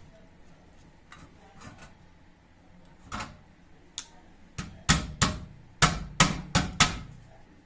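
A few faint clicks, then about nine sharp knocks from about three seconds in, coming faster and louder around five to seven seconds, each with a short ring.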